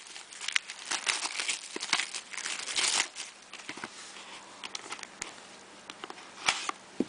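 Plastic wrapping on a box of basketball trading cards crinkling and tearing as it is opened by hand. The crackling is busiest in the first three seconds, then thins to scattered rustles, with a couple of sharp clicks near the end.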